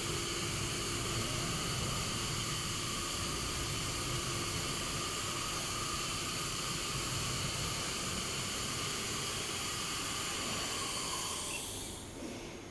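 Steady hiss with a few faint steady tones, dropping away near the end.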